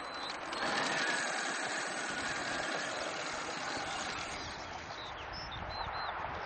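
Electric drive of a 1:5 scale RC Fennek armoured car running steadily as it drives over ploughed soil, with a few short high chirps near the end.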